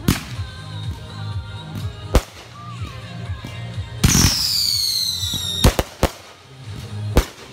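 Consumer aerial fireworks going off: sharp bangs of bursting shells, then about four seconds in a loud whistle lasting about a second and a half that falls in pitch, and a few more bangs near the end.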